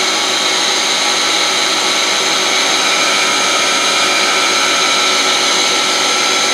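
DMG Mori Sprint 42/8 CNC Swiss lathe's live (driven) tool spindle running at constant speed: a loud, steady, high machine whine.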